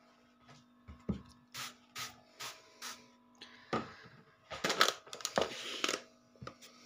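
Plastic trigger spray bottle squirting disinfectant in about five short hissing sprays, roughly two a second, then a longer, louder rustling noise near the end.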